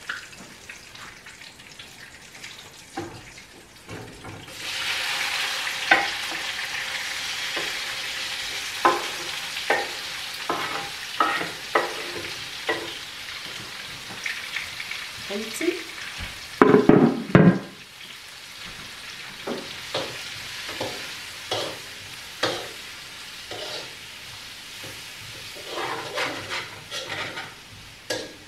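Chopped onions, peppers and tomato start sizzling in hot oil about four seconds in, with the frying hiss then holding steady. A spatula scrapes and taps against the pan throughout as they are stirred.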